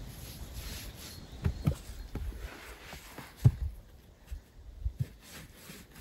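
Dull knocks of clay bricks being handled and set down in place on earth and on each other, half a dozen irregular thuds, the loudest about three and a half seconds in.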